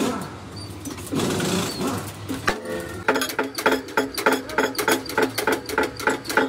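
Rapid, even mechanical clicking, about five a second, setting in about three seconds in after some irregular clatter.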